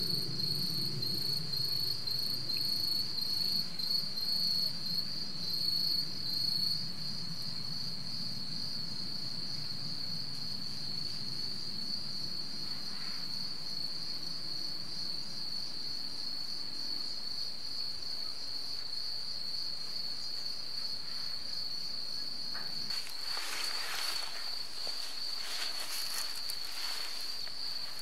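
Insects trilling in a steady, high-pitched, finely pulsing chorus. Scratchy rustling joins for the last few seconds.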